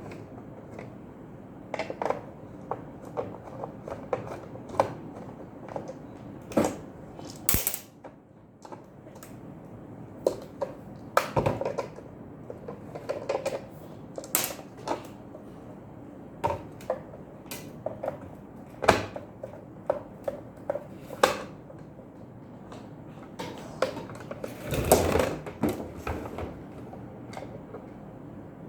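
An electric sandwich maker being opened up by hand: irregular clicks, taps and knocks of tools and plastic and metal parts, with a longer scraping rattle about 25 seconds in.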